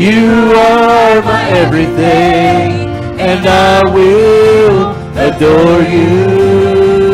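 Live worship music from a church band with acoustic guitars, drums and keyboard, with voices holding long sung notes.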